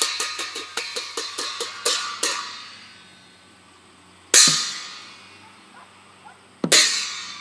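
Hand cymbals clashed in a fast run of about five strikes a second that ends about two seconds in. They are then struck singly, loud, about four and a half and about seven seconds in, each clash ringing and fading slowly.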